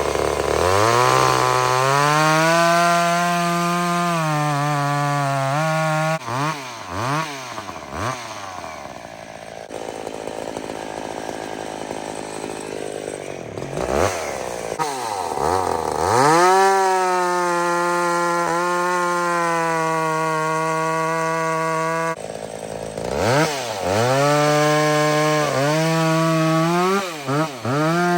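Vintage two-stroke chainsaw revved to full throttle and held there while cutting wood, three times, dropping back toward idle with quick throttle blips in between.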